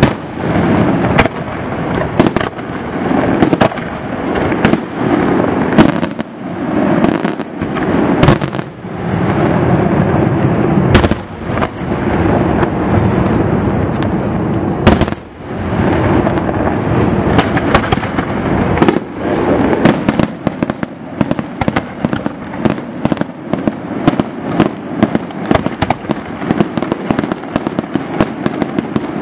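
Aerial fireworks display: shell bursts bang one after another over a continuous crackling wash. In the last third the bangs come faster, several sharp reports a second.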